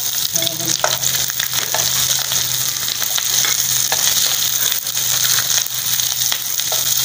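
Chopped onions sizzling as they sauté in hot oil in a nonstick kadai, stirred with a slotted spatula that now and then scrapes and taps against the pan.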